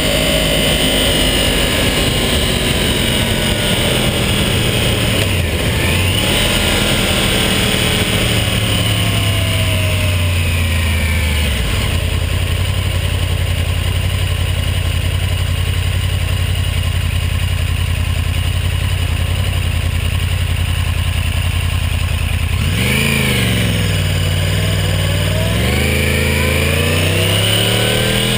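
Yamaha R1 sport bike's inline-four engine under way, heard with wind and road noise. Around the middle the engine settles to a steady low note for about ten seconds, then near the end the revs climb sharply as the bike accelerates.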